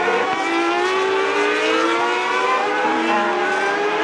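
Race car engine at high revs accelerating, its pitch climbing steadily and dropping back at upshifts, about twice.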